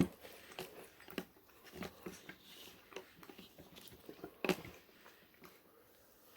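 A person chewing food close to the microphone, with scattered short wet mouth clicks and smacks, the loudest about four and a half seconds in.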